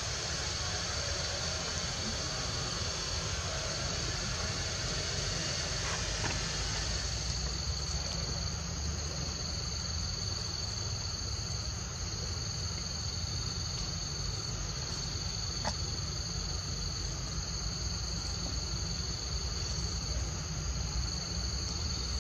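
A steady, high-pitched trilling chorus of forest insects, over a low rumble, with one brief click about two-thirds of the way through.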